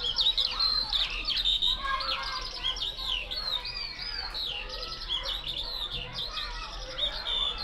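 Small songbirds chirping and singing without pause, several voices overlapping in quick trills and short up-and-down whistled notes.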